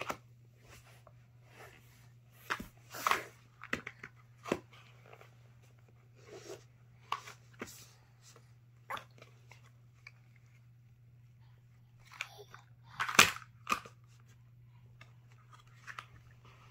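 A baby chewing a crunchy snack: irregular crunches and clicks, louder about three seconds in and again past the middle, over a steady low hum.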